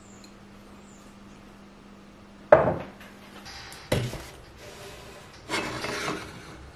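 Things being set down on a wooden shelf: a sharp wooden knock about two and a half seconds in, the loudest sound, and a second knock about a second and a half later. Near the end comes a short rubbing scrape as a wooden-based glass carafe is pushed into place on the shelf.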